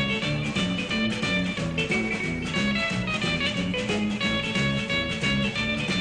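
Background music: guitar-led instrumental with a bass line moving in a steady rhythm.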